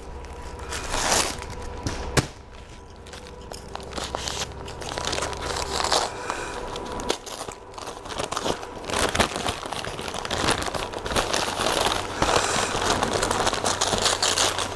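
Newspaper packing crinkling and rustling as it is unwrapped by hand from a pot, growing busier and louder through the second half.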